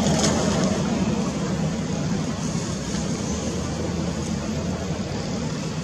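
Steady low rumble with a low hum running through it, even in level throughout.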